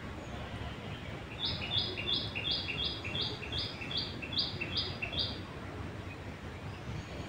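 A bird calling: a run of about eleven short, even, high-pitched notes, about three a second, over a steady background hiss.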